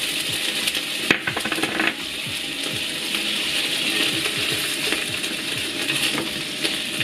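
Thick-cut bacon sizzling in hot olive oil in a frying pan, with the tap and scrape of wooden chopsticks against the pan as the pieces are stirred. There are a few sharp clicks around one and two seconds in.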